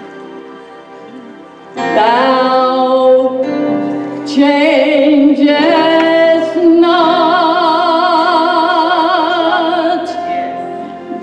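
Gospel song: a woman soloist sings long held notes with strong vibrato, over band accompaniment. The first couple of seconds are soft before the music swells.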